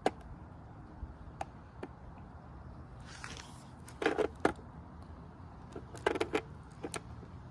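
Clicks and knocks from a plastic alarm clock radio being handled and its buttons and switches worked, in short clusters separated by pauses, with a brief hiss a few seconds in.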